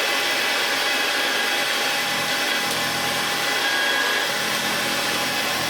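Vintage Hoover Senior 652a upright vacuum cleaner running steadily after a full service and overhaul: a loud, even rushing of motor and fan with a constant whine on top.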